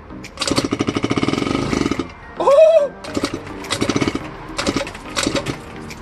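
Honda Elite scooter engine sputtering into life on starter fluid: fast, even firing in uneven bursts that catch and fade. A short whoop of a person's voice about two and a half seconds in.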